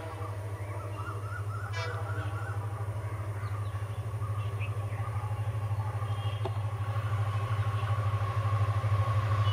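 Indian Railways diesel locomotive approaching, its engine rumble growing steadily louder, with a short horn toot about two seconds in. A steady whine strengthens near the end.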